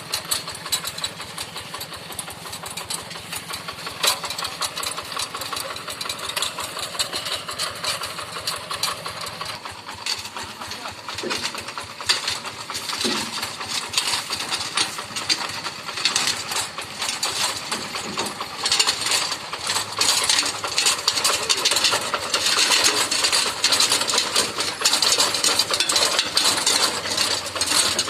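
Hand tractor's diesel engine running steadily with a rapid, even chugging. It gets louder about two-thirds of the way in.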